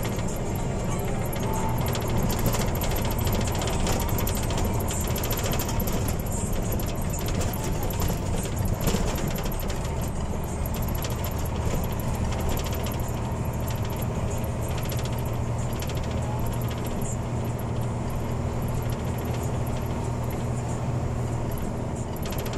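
Engine and road noise of a large vehicle on the move, heard from inside the cab: a steady low drone with constant light rattling and jingling.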